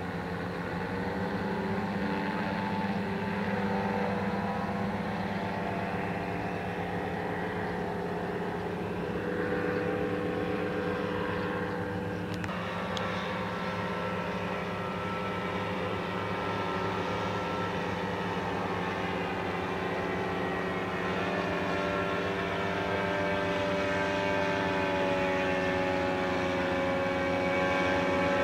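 Powered paraglider's paramotor engine and propeller droning steadily overhead, the pitch shifting slightly as it flies; late on the pitch rises a little and holds.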